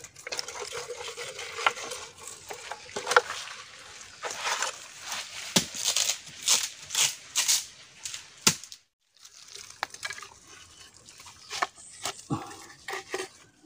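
Bamboo tube traps being handled: irregular sharp knocks and clacks of hollow bamboo, with scraping and rustling in between.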